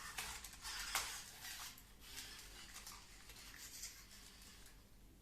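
A scatter of light clicks and rustles, the sharpest click about a second in, thinning out near the end.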